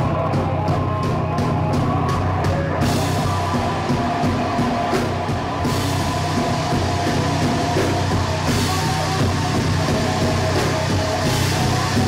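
Live rock band playing loudly: bass guitar, electric guitar and a drum kit. Crisp regular cymbal ticks give way to ringing cymbals about three seconds in, and the ringing comes back twice more later.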